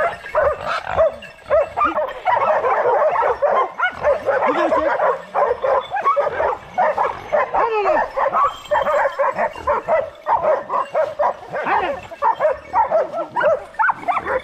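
Hunting dogs barking and yelping over and over, their calls overlapping, with some whimpering.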